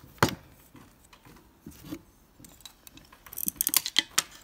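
Hand tools being handled at a mosaic workbench: a sharp click just after the start, a few faint knocks, then a quick run of sharp metallic clicks near the end as a pair of wheeled mosaic tile nippers is picked up and worked.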